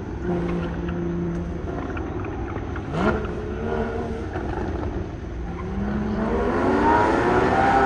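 Porsche Cayman's engine on an autocross run, heard from beside the course. It holds a steady note early on, then rises in pitch and grows louder as the car accelerates toward the listener near the end.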